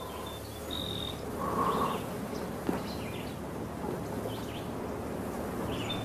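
Outdoor nature ambience: a steady soft hiss with scattered short, high chirps from small wildlife, and a single faint tick about midway.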